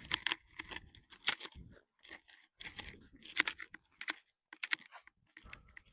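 Footsteps crunching on dry, gravelly ground: an irregular run of short scrapes and crunches.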